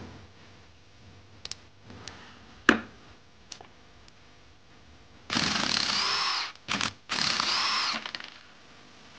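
Cordless power driver with a socket spinning a bolt on a two-stroke motorcycle engine's stator side, run in three short bursts with the motor pitch rising and falling; the middle burst is only a blip. A few small metal clicks from hand tools come first, one of them sharp.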